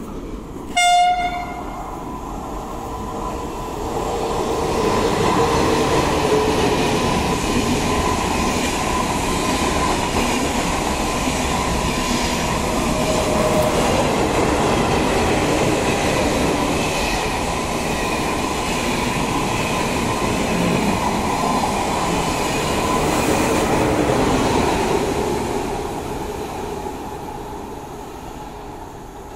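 A short horn blast about a second in, then a double-deck TGV high-speed train running past along the platform. A steady rush of wheel and rail noise builds over the first few seconds, holds, and fades over the last few seconds as the train moves off.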